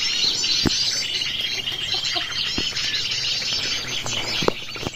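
Many small birds chirping and calling together, high-pitched and overlapping, with a steady high trill running through the middle. A few faint sharp clicks can be heard, one about two-thirds of a second in and others near the middle and the end.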